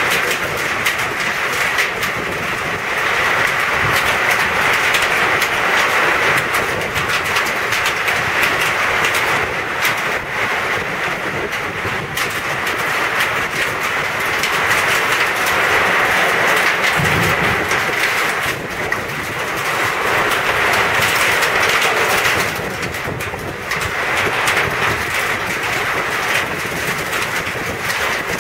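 Hail falling in a storm: a dense, continuous clatter of hailstones striking, growing heavier and lighter in spells.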